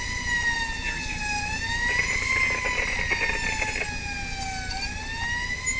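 Fire truck siren wailing, heard from inside the fire truck's cab over engine and road noise; its pitch sinks slowly through the middle and sweeps back up near the end.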